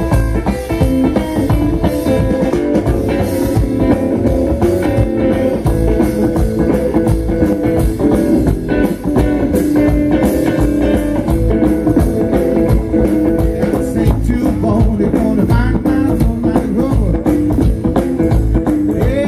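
Live rockabilly band playing a fast rock and roll number: electric hollow-body guitar, upright double bass and a drum kit with a steady beat.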